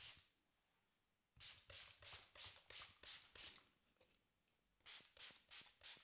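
Hands working over hair and scalp in an Indian head massage, making quiet brushing strokes: one at the start, a quick run of about seven, a short pause, then four more.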